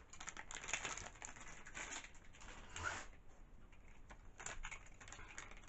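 Irregular light clicks, taps and rustles of plastic toy parts and packaging being handled.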